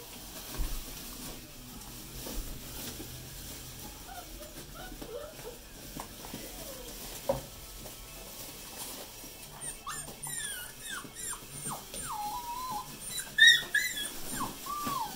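Australian Shepherd puppies whining and yipping in short cries that slide up and down in pitch. The cries are sparse at first and come thick in the last five seconds, the loudest a little before the end.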